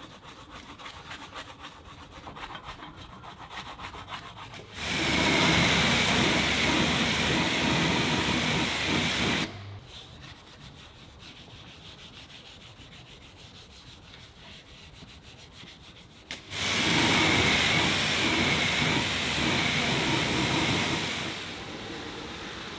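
A stiff detailing brush scrubbing the metal exhaust tips of a Jaguar XKR-S with quick rubbing strokes. It is broken by two loud, steady rushing spells of about five seconds each, with quieter rubbing between them. Near the end a steadier, softer rushing, like water running into a bucket.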